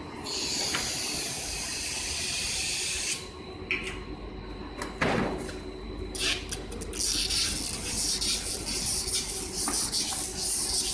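Hissing at the winding station of a PET sheet extrusion line: a hiss for about three seconds, a knock about five seconds in, then a louder, crackling hiss from about six seconds on, over a steady low machine hum.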